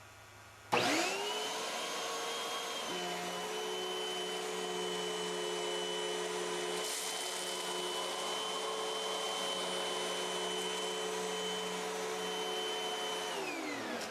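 Hoover Windtunnel MAX Performance Pet (UH72625) bagless upright vacuum cleaner switched on about a second in, its motor spinning up to a steady whine as it runs over carpet. A few seconds in the sound shifts and a lower hum joins, as the brush roll engages; near the end it is switched off and the whine falls away as the motor winds down.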